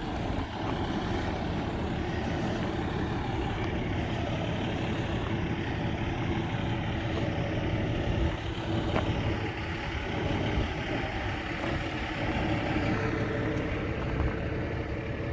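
Engine idling steadily, a constant even running sound.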